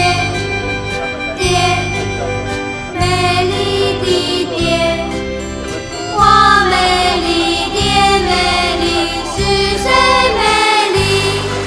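Background music: sustained chords over a bass line that changes every second or two, with a melody line above.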